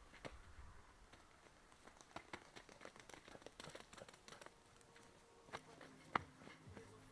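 Faint, irregular footsteps crunching on a gravel and dirt track: scattered light ticks and clicks, with one sharper click a little after six seconds. A faint steady low hum comes in about five and a half seconds in.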